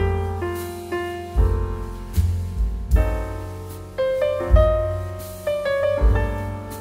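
Background piano music: chords over low bass notes, each struck note fading away before the next.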